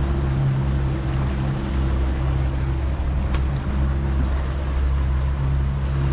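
Yamaha 200 outboard motor running at a steady pitch under way, with the rush of wake water along the hull.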